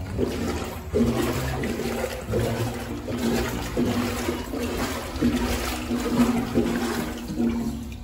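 Water sloshing and splashing around someone wading through the shallow water inside a concrete culvert. The rushing noise swells and dips unevenly throughout.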